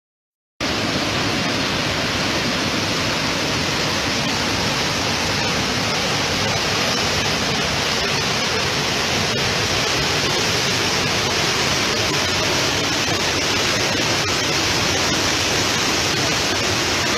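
Muddy flash-flood water rushing and pouring over a rocky waterfall, a loud steady rushing noise that starts abruptly about half a second in.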